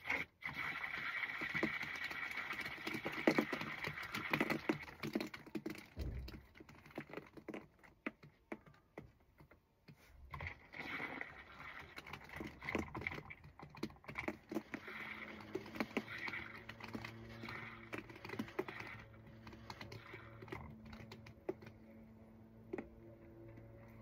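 Rapid scratchy clicking and rattling in two long stretches, from a pipe cleaner being worked through a blocked sunroof drain tube, loosening a build-up of crud. A faint steady hum runs under the later part.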